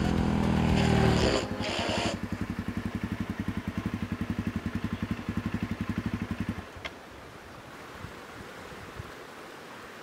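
Suzuki DRZ400E single-cylinder four-stroke engine settling from a run into an even, pulsing idle. It is switched off about six and a half seconds in, followed by a click. After that only the faint steady rush of the creek remains.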